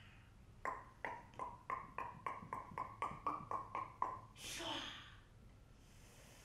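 A performer's tongue clicks: a quick run of about a dozen short pitched clicks, about four a second, followed by a breathy huff.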